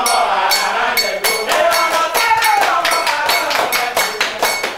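Voices singing a ritual chant over a struck metal bell that keeps a quick, steady beat with a bright ringing tone.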